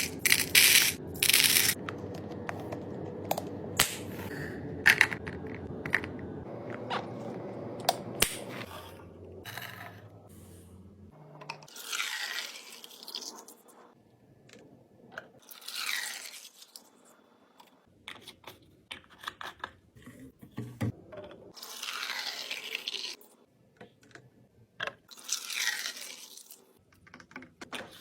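Groceries and packaging being handled while a mini fridge is restocked: sharp clicks and knocks of items being set down in the first half, then several separate bursts of plastic packaging rustling and crinkling.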